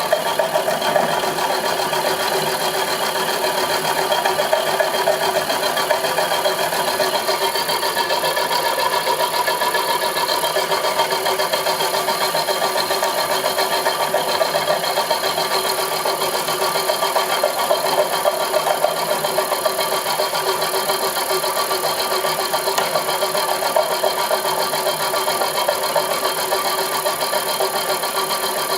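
Homemade milling machine running steadily, its motor and drive giving a constant mechanical whir with a rough grinding texture and no change in speed.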